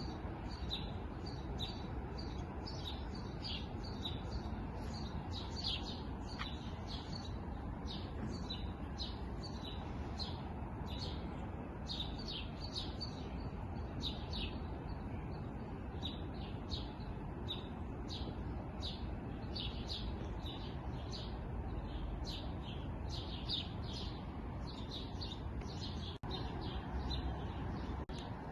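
Small songbirds chirping continuously, many short rapid calls overlapping, over a steady low background hiss.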